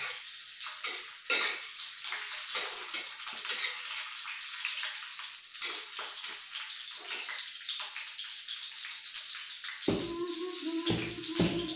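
Steady sizzling and fine crackling from a pan on a lit gas stove, with oil heating for the sabzi.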